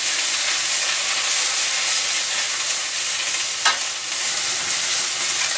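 Chicken breasts frying in a lidded pan, with spinach cooking down in a second pan: a steady sizzle. A single sharp click a little after halfway through.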